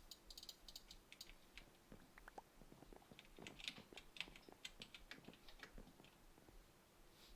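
Faint, irregular quick clicks and taps, several a second, bunched most thickly in the middle.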